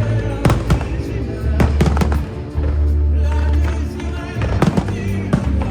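Fireworks bursting in a string of sharp bangs and crackles over loud orchestral show music.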